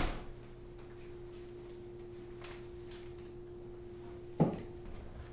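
Quiet room tone with a steady low hum, a few faint clicks, and one short thump about four seconds in.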